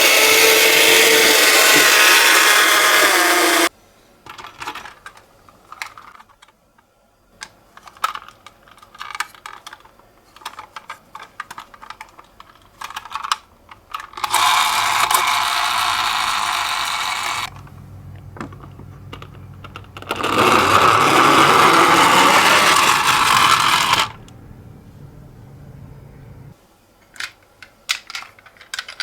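Toy ambulance minicars: three loud bursts of sound of a few seconds each, at the start, about halfway and past two-thirds. In between come many light plastic clicks and clatter as the toys are handled, and a low steady hum under the later part.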